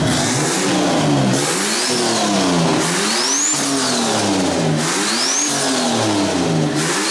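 Compound-turbocharged AU Falcon's four-litre Intech inline-six being revved over and over, its pitch climbing and falling about every two seconds. A high turbo whistle rises and falls with each rev. It runs cleanly on a freshly fitted fuel pump that cured its leaning out.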